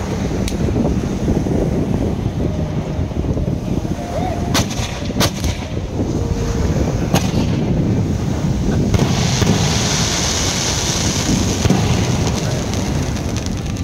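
Fireworks going off in quick succession: a dense, continuous rumble of booms, with a few sharp cracks about four to seven seconds in and a hiss from about nine to twelve seconds.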